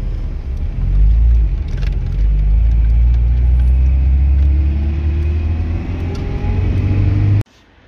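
A vehicle engine running with a heavy low rumble, its pitch climbing slowly as it speeds up. It cuts off abruptly near the end.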